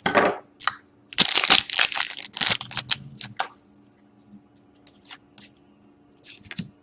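A hockey card pack's wrapper being torn open and crinkled in the hands, in loud rustling, tearing bursts over the first three and a half seconds, then light handling clicks and a little more crinkling near the end.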